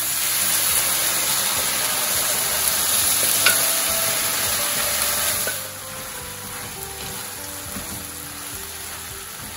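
Sweet-sour sauce sizzling loudly as it hits a hot nonstick frying pan of fried chicken pieces, then a wooden spoon stirring the pan. The hiss drops much quieter a little past halfway, with one light click shortly before.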